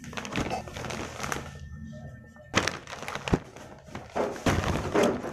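Clear plastic packaging and gift-wrap paper crinkling and rustling in irregular handfuls as a present is unwrapped, with background music underneath.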